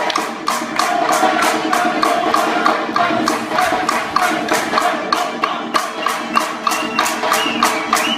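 Circassian dance music: a button accordion plays the melody over a quick, steady beat of wooden clappers (pkhachich), hand clapping and a drum.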